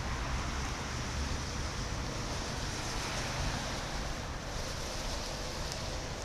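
Steady wind noise on the microphone, with a low rumble underneath.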